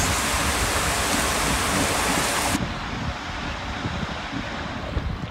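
Rushing water and a rider sliding down an enclosed tube water slide: a steady hiss of water with a low rumble. The hiss is brighter for the first two and a half seconds, then drops a little quieter.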